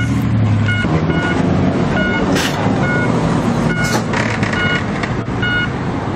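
Lowered tuned cars' engines and exhausts running as they pull away at walking pace. The sound changes about a second in as one car leaves and the next creeps out. A short electronic beep repeats about once a second behind them, and there are two brief sharp hissing bursts in the middle.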